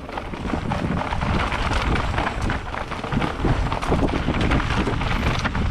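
Mountain bike riding fast down a rough trail: heavy wind rush on the microphone over tyre noise and many small knocks and rattles from the bike.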